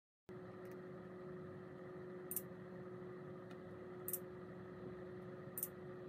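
Faint steady hum with one constant tone, starting a moment in, with a few brief high ticks spaced a second or two apart.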